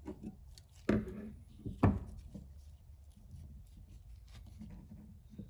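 Handling noise from needle-nose pliers, a small plastic rocker switch and gloved hands working a wire: scattered small clicks and rubbing, with two sharp knocks about a second apart near the start.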